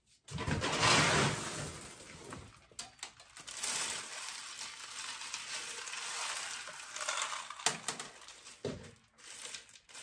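Hydroton expanded clay pebbles poured from a cup into a hydroponic net pot: a loud rattling rush for the first couple of seconds, then quieter clattering and clicking as fingers push the pebbles into place.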